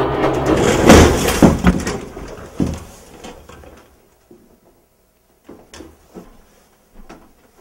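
A loud door bang about a second in, fading away over the next two seconds, followed by a few faint knocks and shuffles.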